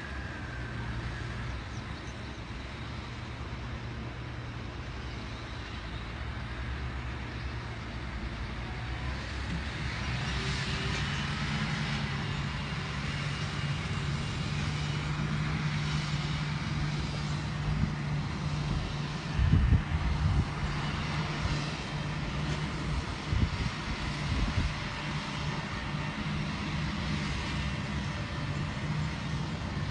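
John Deere 8370R tractor's six-cylinder diesel engine running steadily under load as it pulls a strip-till ripper and planter. The drone grows louder about a third of the way in, with a few brief thumps around the middle.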